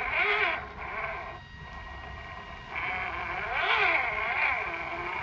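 Whine of the Tamiya High-Lift F-350 scale crawler's electric motor and gearbox, its pitch rising and falling over and over as the throttle is worked on the climb. It drops away for about a second a little after the start, then comes back loudest near the end.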